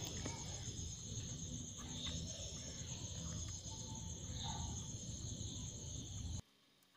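A steady high-pitched insect trill over a low background hum, with a few faint clicks. Everything cuts off suddenly about six seconds in.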